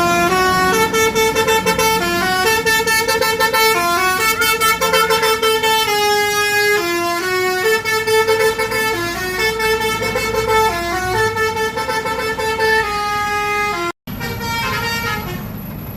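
Bus basuri (telolet) multi-tone horn playing a long melody of stepped, held notes. The tune drops out for a split second near the end, then carries on briefly.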